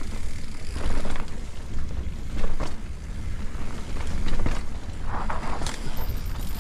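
Wind noise buffeting an action camera's microphone as mountain bikes ride down a rough dirt trail, with scattered knocks and rattles from the bikes bouncing over the ground.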